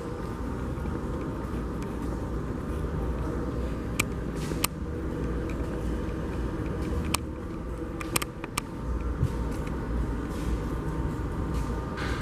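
Underground subway station ambience: a steady low rumble with a handful of sharp metallic clicks, several of them bunched together about eight seconds in.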